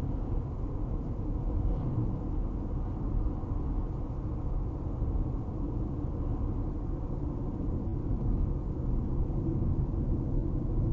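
Steady road and engine rumble inside a car's cabin, cruising at highway speed of about 57 to 59 mph.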